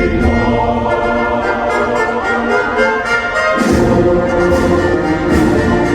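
Orchestral music led by brass from a fireworks show soundtrack, with the low end swelling in about halfway through.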